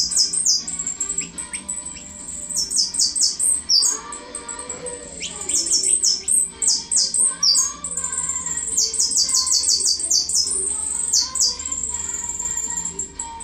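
A caged songbird singing: runs of very high, thin notes, each sliding quickly downward, alternating with held high trills. Music plays faintly underneath.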